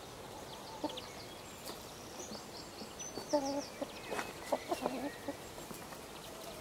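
Domestic chickens clucking softly, a few short clucks in the middle and a quick run of them a little later, with faint high chirps in the background.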